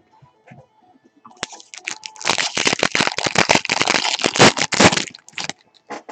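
Trading-card pack wrapper being torn open and crinkled by hand, a dense run of sharp crackling that starts about a second and a half in and stops near the end.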